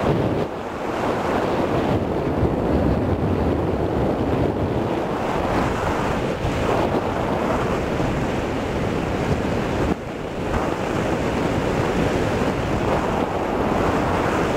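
Wind rushing over a camcorder microphone fixed to a hang glider's control bar in flight: a steady, loud rush of air that dips briefly about half a second in and again about ten seconds in.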